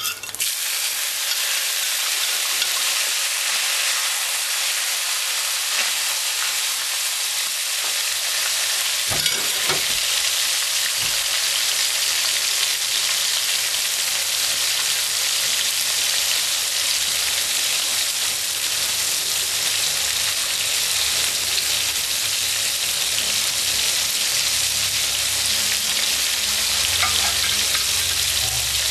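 Snapper heads, and then sliced onion and scallion, frying in hot oil in a pan: a steady sizzle.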